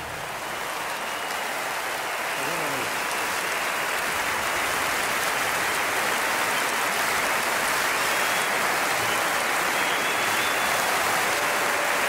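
Large concert audience applauding, the clapping swelling over the first couple of seconds and then holding steady.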